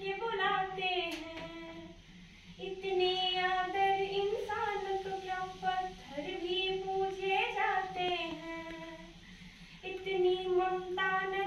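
A young woman singing solo without accompaniment, holding long notes in phrases broken by three short pauses.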